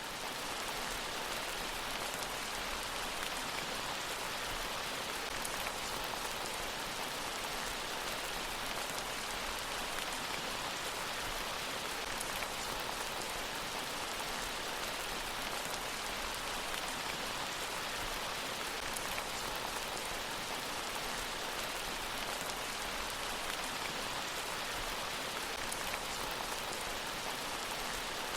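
Steady rain falling, an even hiss of countless drops with faint scattered patters. The level holds constant throughout.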